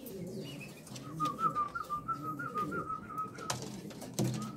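Pouter pigeons cooing low, with a thin, slightly wavering whistle held at one pitch from about a second in. The whistle breaks off after a couple of seconds and starts again near the end, with a sharp knock or two in the gap.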